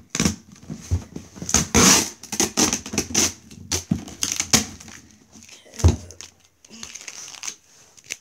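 Packing tape being ripped off a cardboard box and the box and its paper handled: a busy run of tearing and crinkling noises, loudest about two seconds in, thinning out later, with a sharp knock of cardboard near six seconds.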